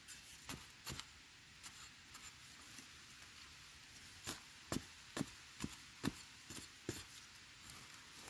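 A small metal digging spade striking and scraping into dry, crumbly soil, with soil being flung aside: a dozen or so short, sharp, irregular scrapes, the strongest run about halfway through.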